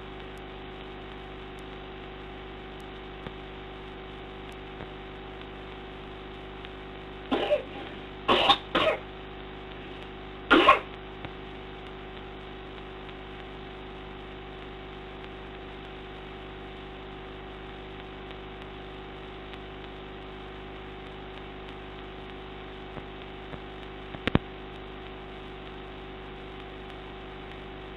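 A person coughing, four coughs in a short fit between about seven and eleven seconds in, over a steady electrical hum. It is a night-time cough that has persisted through the night despite two puffs of a Ventolin (salbutamol) inhaler.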